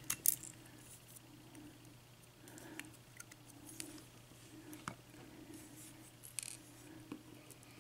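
Faint, scattered small metal clicks and scrapes as the pins and springs are worked out of an American Series 5200 padlock's cylinder, with the sharpest click just after the start.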